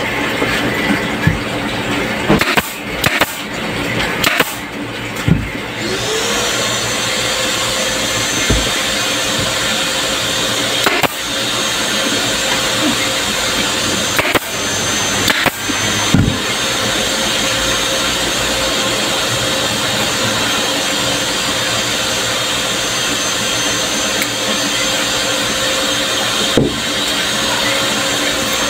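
An electric motor, most likely the workshop air compressor feeding the pneumatic stapler, spins up about six seconds in and then runs with a steady whine and hum. Scattered sharp clicks and knocks come from hand work on the plastic seat frame.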